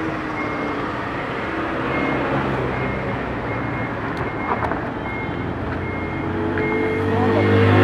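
Vehicle reversing alarm beeping in a steady repeating pattern, about once every two-thirds of a second, over a van's engine running, which grows louder near the end.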